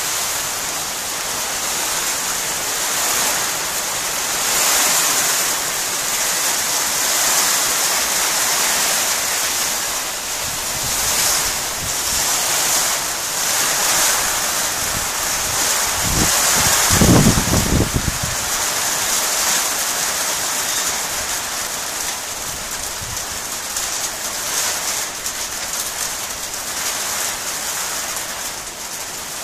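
Hailstones falling steadily onto a concrete path and lawn, a continuous hiss of pelting ice. About halfway through, a brief low rumble rises over the hail for a second or two.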